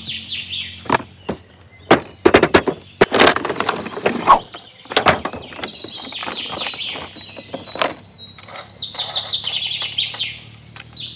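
Birds chirping, with a quick trill of rapid repeated notes near the end, over sharp knocks and clicks from the plastic packaging of a toy bike being handled in the first half.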